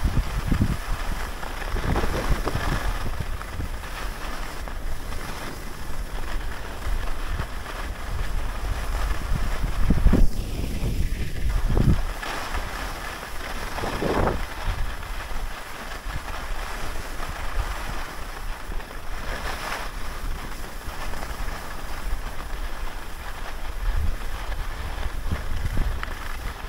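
Wind rumbling on the microphone of a camera worn by a skier gliding down a groomed run, with the skis hissing over the snow. It swells a few times, loudest about ten seconds in.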